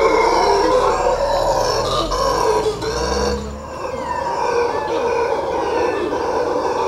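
Mantled howler monkeys howling: a loud, continuous roaring chorus that dips briefly about three and a half seconds in.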